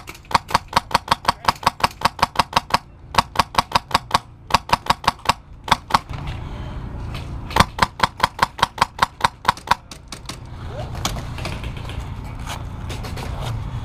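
HPA-powered VFC Avalon airsoft rifle firing fast full-auto strings of about ten shots a second. There are four bursts with short pauses between them, then a few single shots, and a steady low rumble in the last few seconds.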